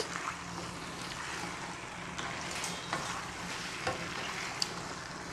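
Beef tripe and ox feet sizzling steadily in a pan with sautéed onion, garlic and chorizo, with a few light knocks of a utensil as it is stirred.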